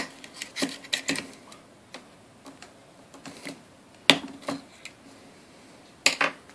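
Glock polymer magazine base plate clicking and snapping as it is pushed and worked by hand. There are scattered light clicks, then sharper snaps about four seconds in and again near the end.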